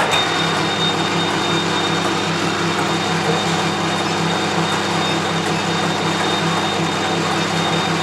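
Metal lathe running steadily, its motor and drive giving a constant hum with a thin high whine on top; it comes in abruptly at the start.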